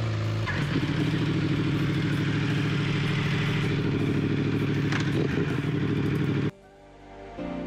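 Motorcycle engine running steadily at idle with an even throb, which cuts off suddenly about six and a half seconds in. Soft music starts just before the end.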